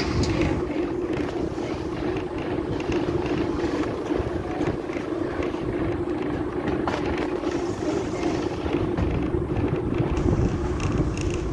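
Heritage train running slowly, heard from on board: a steady drone with low rumble underneath.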